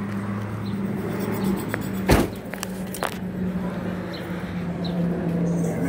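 A steady low hum of an idling vehicle engine, with a sharp knock about two seconds in and a lighter click about a second later.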